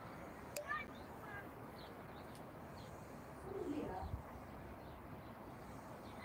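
Faint wild birds chirping, with scattered short high calls, and a lower, louder call about three and a half seconds in. A sharp click sounds about half a second in.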